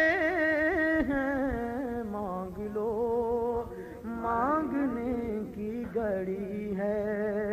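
Naat singing by a male voice, drawing out long, wavering held notes without clear words between lines of the verse.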